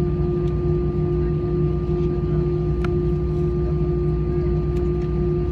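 Steady cabin noise of an Airbus A320 on the ground: a constant low rumble with a steady hum and a thin whine held on top, from the aircraft's engines and air systems.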